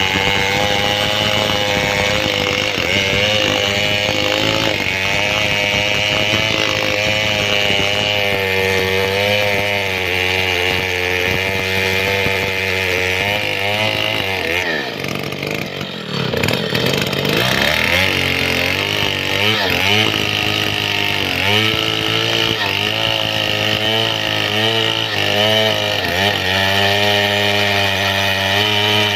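Stihl 070 two-stroke chainsaw running at high revs while cutting through a large mahogany trunk. About halfway through, the revs drop steeply and then climb back, and for the rest of the time the pitch wavers up and down under the load of the cut.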